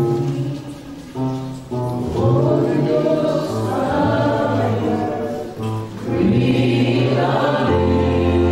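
Gospel worship singing, voices singing a slow song together over held low accompanying notes that change pitch every second or so.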